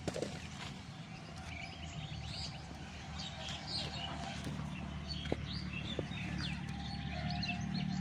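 Several birds chirping and calling in short, scattered notes, over a low steady hum.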